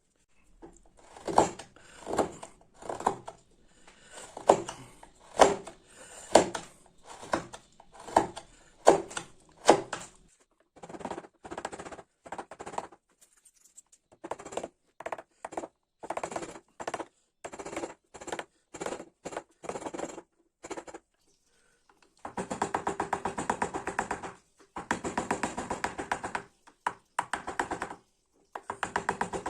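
Hand wood-carving on ash: sharp knocks about once a second, like a mallet driving a carving chisel, give way to lighter, quicker taps. Near the end come two stretches of fast, dense scraping strokes.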